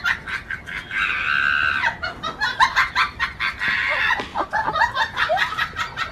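Chickens clucking in quick, repeated calls, with two longer drawn-out squawks: one about a second in, the other just before four seconds.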